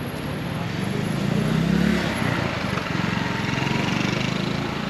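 A motor vehicle's engine running close by on a city street, growing louder to a peak about two seconds in and staying strong afterward.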